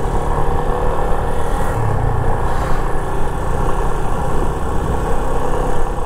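Yamaha FZ25 motorcycle's single-cylinder engine running steadily at a cruise, mixed with road and wind noise.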